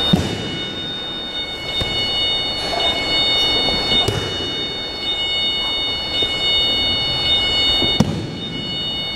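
Thuds of a body hitting a gym mat as an aikido partner takes breakfalls from throws, three times about four seconds apart, over a steady high-pitched whine.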